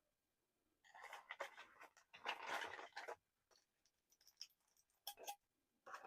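Rustling and scraping for about two seconds, then a few light clicks and taps: hands handling small parts during an espresso-machine cleaning.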